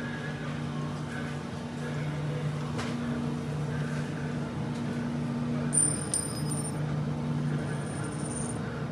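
Steady low hum of a supermarket refrigerated dairy display case, two low tones wavering slightly, with a brief cluster of faint high electronic tones and a click in the second half.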